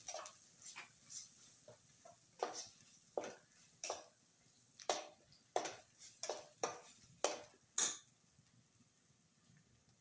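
Metal spatula scraping and knocking against a stainless steel pan while green peas are stirred and sautéed in masala. The sound is a run of irregular clicks and scrapes that stops about eight seconds in.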